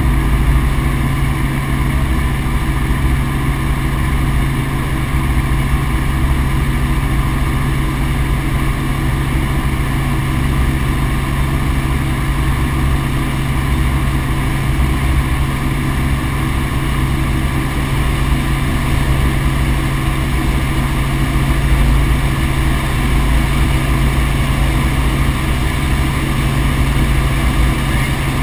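Helicopter in flight, its engine and rotor running steadily: a constant loud drone with a strong low hum that holds the same pitch throughout.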